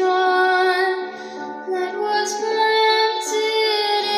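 Music played through a small two-driver DIY speaker box: a singing voice holds long notes over a backing track, with almost no deep bass.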